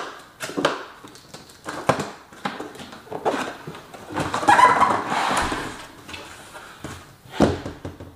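Large cardboard box being cut and opened: a series of sharp knocks and taps of knife and hands on cardboard, then a longer scraping rustle about four seconds in as the lid is lifted open, and another sharp knock near the end.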